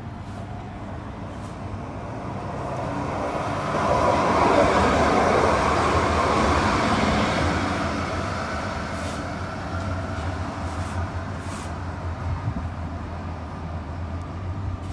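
CAF Urbos 100 battery-powered light rail tram passing close by on street track. Its running noise swells over a few seconds, is loudest a little before the middle, then fades slowly as it moves away.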